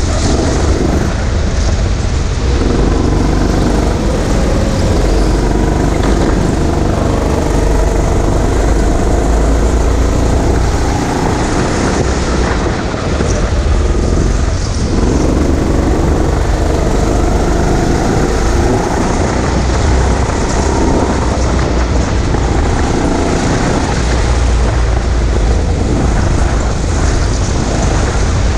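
Go-kart driven at speed around a track, heard from on board: a steady motor note that rises and falls through the laps over a heavy low rumble.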